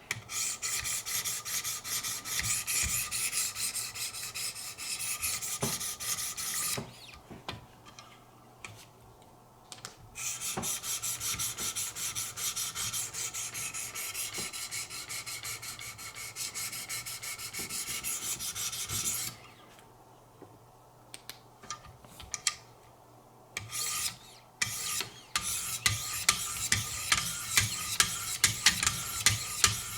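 800-grit Wicked Edge sharpening stones being stroked along a knife's edge in a guided fixed-angle sharpener. It is a steady scraping rasp in long runs with two pauses, and near the end it becomes quicker, separate strokes.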